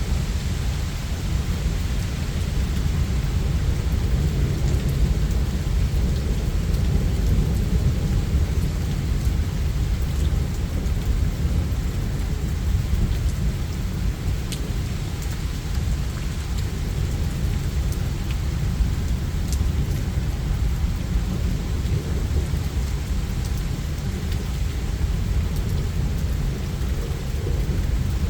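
Steady rain falling with thunder rumbling low and continuously underneath, with scattered drop ticks.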